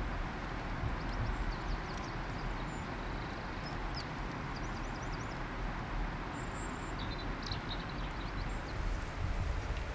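Outdoor nature ambience: a steady hiss with a low rumble, and faint, short, high chirps of small birds scattered through, several close together in the latter half.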